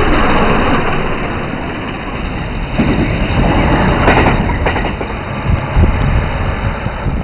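Loud, steady rumble of a train running past at speed, dying away near the end.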